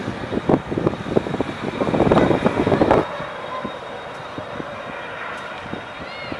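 High-speed catamaran's engines running as it heads out across the harbour, mixed with rough, gusty noise on the microphone. About three seconds in the sound drops suddenly to a quieter steady hum, with a short high chirp near the end.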